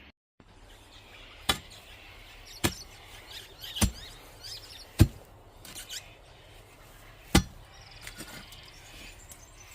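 A digging tool chopping into soil and roots: about six sharp strikes, one every second or two, with birds chirping faintly.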